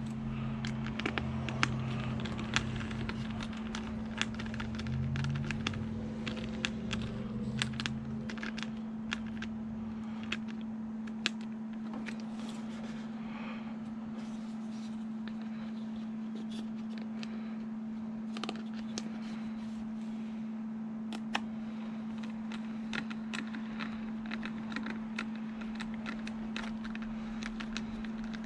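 Scattered small clicks and scrapes of hands working with small screws and plastic parts, tightening the screws that hold a control horn on a foam RC plane's stabilizer. A steady low hum runs underneath.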